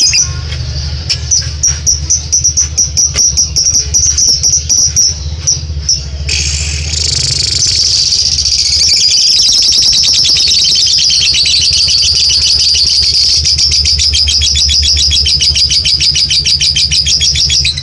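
Lovebird's ngekek song: a string of quick high chirps, then about six seconds in a long, unbroken, very fast chattering trill that carries on to the end. The length of the ngekek is the point; a long-lasting ngekek is the trait prized in Indonesian lovebird keeping.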